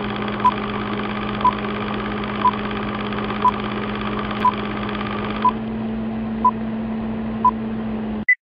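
Old-film countdown leader sound effect: a steady hum and hiss with a short beep once a second, eight in all. It ends on a single higher beep and cuts off suddenly.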